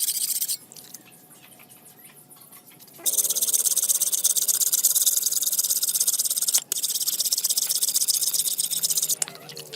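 Abrasive power tool grinding or sanding a steel hoe head, a high-pitched rasping hiss in three bursts: a short one that stops about half a second in, then two longer passes separated by a brief break.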